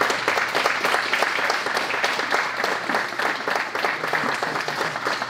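A small group applauding steadily.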